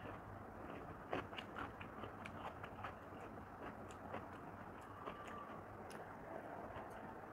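Close-miked chewing and wet mouth clicks from someone eating soft rice with papaya ghonto by hand, a string of short irregular smacks and clicks over faint hiss.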